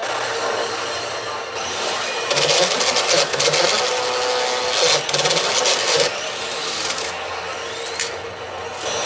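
Pachinko machine in play: a dense, rapid rattle and clatter with electronic effect sounds. It gets louder from about two seconds in to six seconds, with a short steady tone near the middle and a sharp click near the end.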